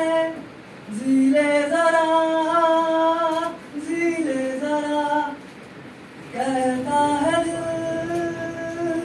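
A solo voice singing a song without accompaniment, in long held notes, with short breaks between phrases about half a second in and again around five and a half seconds in.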